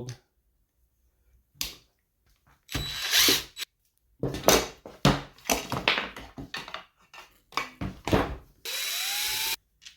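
Power drill-driver with a square bit running in short spells to back screws out of a chainsaw handle, with a rising whine as the motor spins up near the end.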